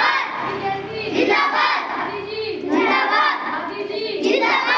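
A group of children's voices chanting together in unison, in short repeated phrases about a second long.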